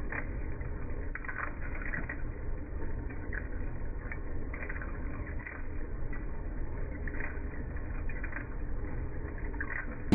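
Centre lathe running with a steady low rumble and faint irregular ticks from the tool cutting into a hydraulic cylinder rod to part off its eye, sounding muffled and dull.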